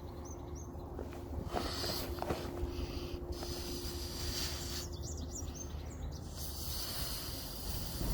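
A person blowing breaths into a balloon to inflate it, a series of airy puffs. Small birds chirp briefly twice in the background.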